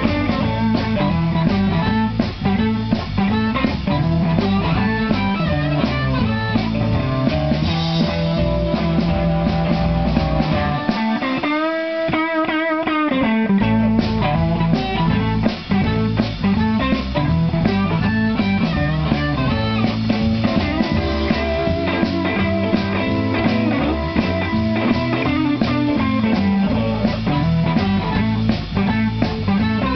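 Live blues band playing: a harmonica played into a vocal microphone over electric guitars, bass and drums. Around eleven seconds in, the band drops out for a couple of seconds while a single wavering note is held, then the full band comes back in.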